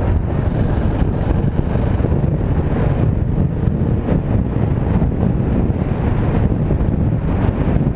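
2015 KTM 690 Enduro R's single-cylinder four-stroke engine running steadily under way, mixed with wind buffeting the microphone.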